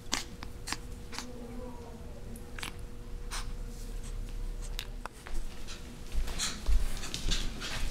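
A Japanese Chin puppy playing and nibbling at a hand, with scattered sharp clicks and taps that come quicker and louder in the last couple of seconds.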